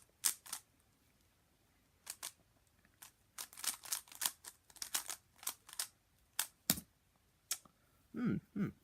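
Zcube M speedcube being turned by hand: quick runs of sharp plastic clicks as the layers snap round, broken by pauses of about a second.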